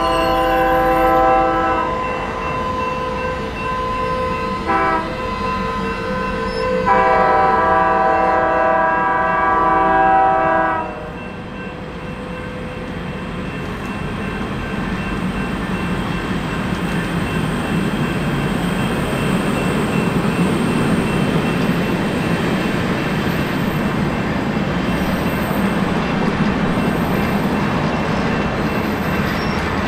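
Union Pacific Big Boy 4014's chime steam whistle sounding the end of a grade-crossing signal: a long blast, a brief short toot, then a final long blast that stops about eleven seconds in. After it comes the steady rolling noise of the passing passenger cars on the rails, slowly growing louder.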